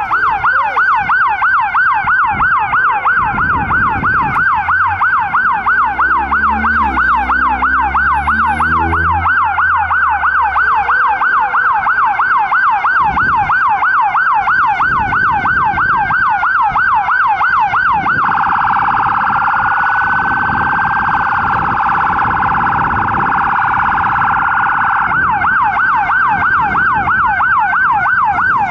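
Electronic emergency-vehicle sirens on yelp, sweeping rapidly up and down about four times a second. Past the middle the siren switches to a much faster warble for several seconds, then goes back to yelp. A low rumble runs underneath a few seconds in.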